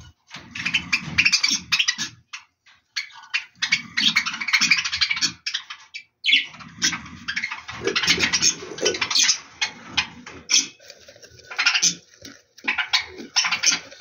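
Budgerigar hen and chicks calling in the nest: runs of raspy chirps and chatter, broken by short pauses.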